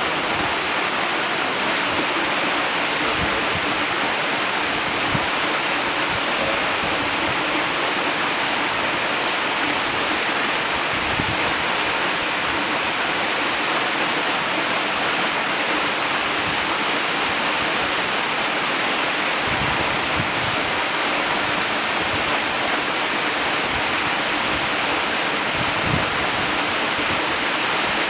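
Waterfall: a steady, unbroken rush of falling water, strongest in the high, hissing range.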